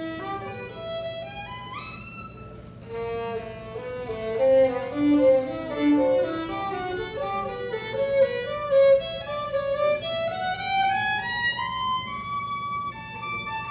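Solo violin played with the bow: a melody of held notes with a quick upward slide about two seconds in, and a line that climbs steadily higher in the second half.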